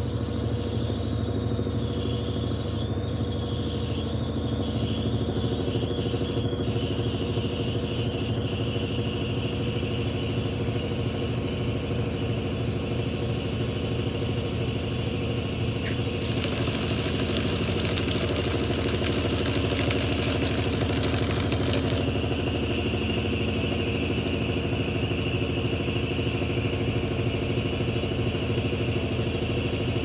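Brastemp Mondial top-loading washing machine running its spin-rinse, with a steady motor and drum hum and a thin high whine throughout, the small chirp of a new shaft seal that is normal while it beds in. About halfway through, water jets spray into the spinning drum with a loud hiss for about six seconds.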